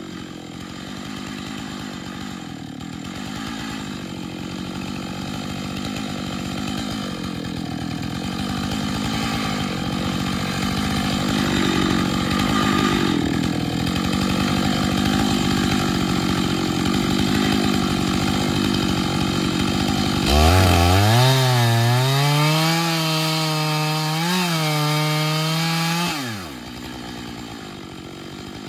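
Chainsaw on an Alaskan chainsaw mill, running steadily under load as it rips lengthwise through a large log, slowly getting louder. About 20 seconds in, the engine note changes abruptly: a louder tone climbs steeply, holds for several seconds, then drops away sharply, leaving a quieter sound.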